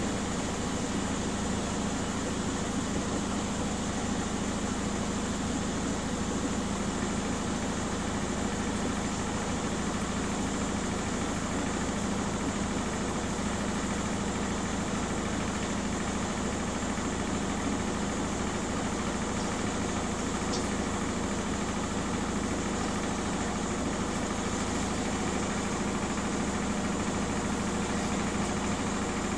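Miele W 5963 front-loading washing machine spinning, a steady drone that holds the same pitch and level throughout.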